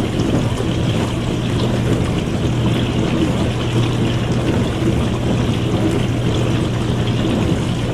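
Dishwasher running through a wash cycle: a steady pump hum under a continuous swish of water sprayed around the tub.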